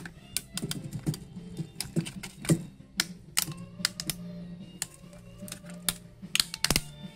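Cracked plastic top shell of a DJI Mini 2 drone being pried and pulled off by hand: irregular plastic clicks and snaps, several a second.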